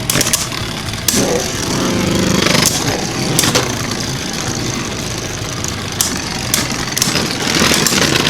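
Two Beyblade Burst spinning tops, Hazard Kerbeus and Vise Leopard, whirring and scraping around a plastic stadium, with a handful of sharp clacks as they collide.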